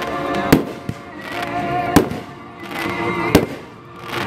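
Aerial fireworks shells bursting, three sharp bangs roughly a second and a half apart.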